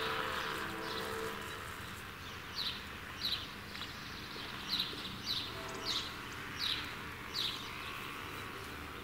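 A bird calling a series of short, high, falling whistled notes, spaced about two-thirds of a second apart with a brief pause midway, over a steady low outdoor rumble. A low humming tone fades out about a second in.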